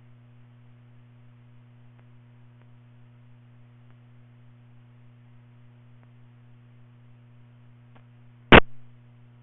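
Steady low electrical hum on the radio scanner's audio, broken near the end by one short, loud pop.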